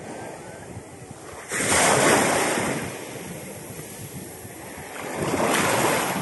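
Small sea waves washing in over a shallow sandy shore, swelling twice: about a second and a half in, and again near the end.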